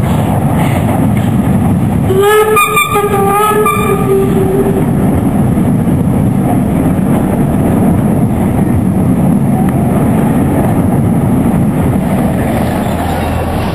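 A steam locomotive and its passenger coaches rolling across a bridge with a steady heavy rumble. About two seconds in, a steam whistle blows once for roughly two and a half seconds.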